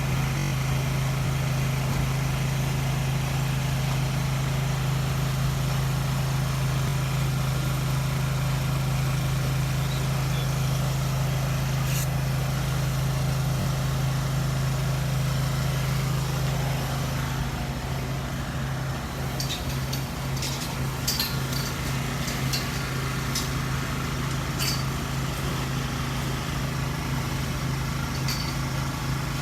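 Small engine running steadily at one speed, a constant drone, with a few light clicks and knocks in the second half.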